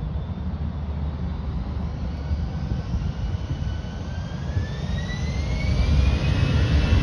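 Airbus A320-family airliner's jet engines spooling up for the takeoff roll: a low rumble with a whine that rises steadily in pitch from about four seconds in, growing louder near the end.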